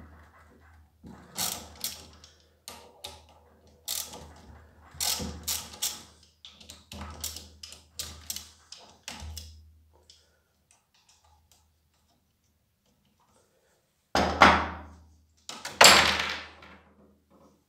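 Ratchet wrench clicking in short repeated bursts as the pressure washer's pump mounting screws are undone, then a quiet spell and two louder clunks near the end.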